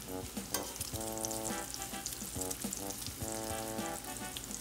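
Bacon sizzling as its fat renders in a 10-inch vintage Piqua Ware cast iron skillet, a steady crackling fry started from a cold pan at medium heat. Metal tongs click against the pan as the strips are flipped, over background music.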